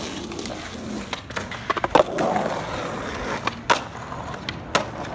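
Skateboard wheels rolling on pavement, broken by several sharp clacks of the board hitting the ground and curb, the loudest cluster about two seconds in.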